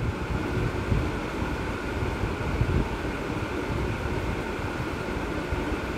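A steady din of many bats flying about, with a few faint high tones over a low rumble.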